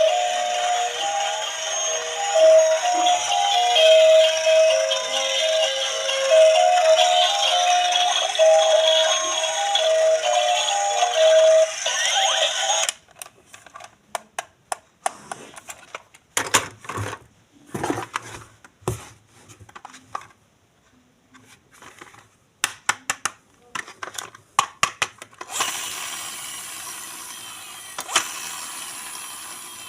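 A loud electronic tune of short stepped beeping notes over a hiss plays for about thirteen seconds and cuts off suddenly. It is followed by scattered clicks and rattles of hard plastic toy parts being handled, then a fading hiss.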